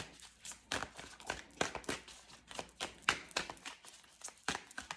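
Tarot cards being handled and shuffled to draw a clarifier: a quick, irregular run of soft card taps and flicks, about two or three a second.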